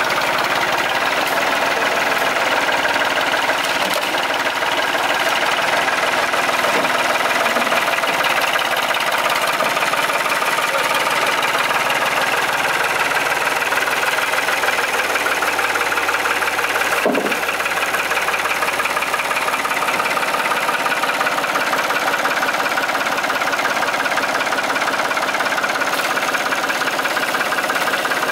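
Tractor engine idling steadily, with one short sharp knock about seventeen seconds in.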